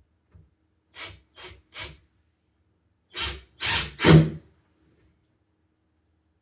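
Short scraping, rasping strokes on a wooden door as the door lock is worked into place: three lighter strokes, then three louder ones.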